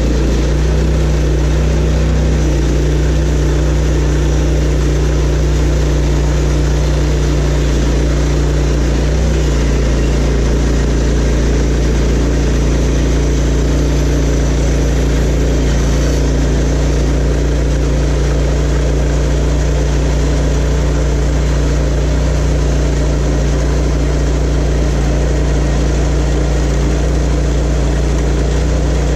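Sawmill running with its engine at a steady pitch and an even hiss over it.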